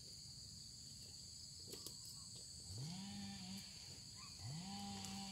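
Insects buzzing steadily at two high pitches, with a frog giving two low calls in the second half, each about a second long, that swoop up and then hold. A few faint clicks about two seconds in.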